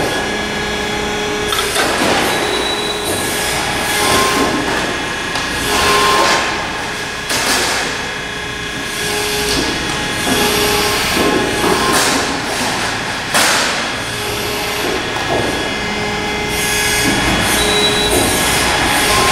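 Thalmann ZR Series sheet-metal long folder running through folding cycles: a steady machine noise with repeated surges of hiss every second or two and short whining tones that start and stop as the beams move.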